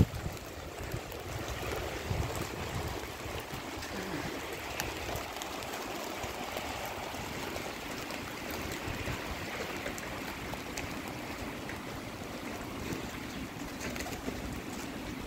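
Steady rain falling on a paved street, with rainwater running along the pavement and scattered drops ticking.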